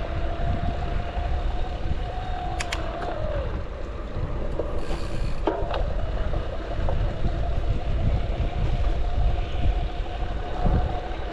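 Fazua Drive 60 e-bike motor running under assist, a steady whine whose pitch dips briefly about three seconds in, over wind and road rumble. A few sharp clicks, the drive's rattling noise, come about two and a half and five and a half seconds in.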